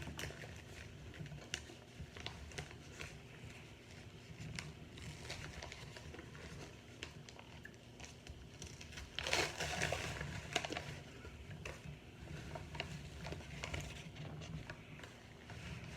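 Microwave-baked cornstarch chunks being chewed and crunched: a run of small crackling crunches, with a louder burst of crunching about nine seconds in.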